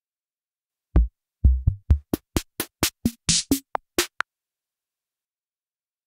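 Vintage drum machine preset ("Vintage Machines" in reFX Nexus 4's Sound of the 70s expansion) playing a short pattern. It opens about a second in with a few deep kick hits, then a quick run of sharper clicky hits and one hissing cymbal-like hit, and stops abruptly about four seconds in.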